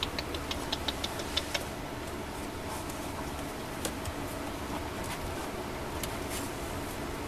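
Kittens clambering over a torn cardboard box on pellet litter: a quick run of light clicks and scratches in the first second and a half, then occasional single clicks, over a steady low hum.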